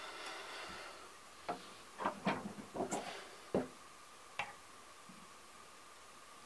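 About seven short, sharp clicks and knocks over three seconds as a hacksaw is put down and a wooden hand-screw clamp in a bench vise is handled. A faint steady tone runs underneath.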